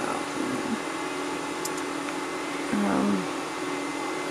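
Steady hum and fan whir of running equipment, with a light click partway through and a brief murmured voice sound about three seconds in.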